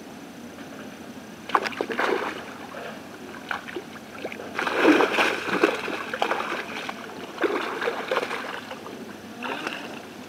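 Water splashing in irregular bursts as a cast net holding fish is dragged out of shallow pond water, with the fish thrashing inside it. The loudest splashing comes about halfway through.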